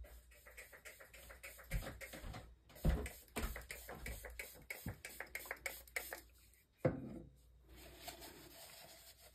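Handling noise: a quick, irregular run of small clicks and taps, with a louder knock about three seconds in and another about seven seconds in.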